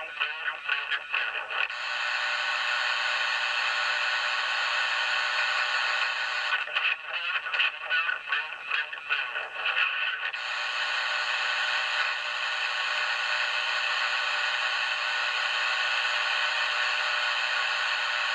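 CB radio on single sideband giving a steady static hiss. Near the start, and again about a third of the way in, the hiss is broken by stretches of choppy, warbling, garbled voice-like audio before the steady hiss returns.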